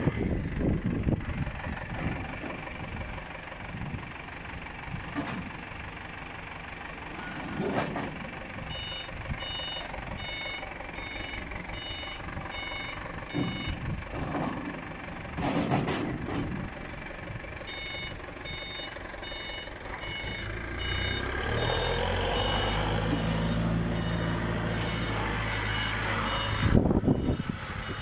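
Forklift reversing alarm beeping about twice a second, in two spells with a pause between, and the forklift's engine running under the second spell. A few sharp knocks near the middle.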